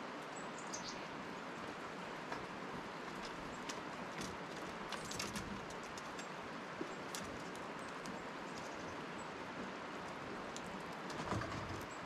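Steady outdoor hiss with scattered light clicks and taps, from gray squirrels scrabbling and climbing on a wooden bird feeder. A few faint high bird chirps come about a second in, and there are some soft low bumps near the end.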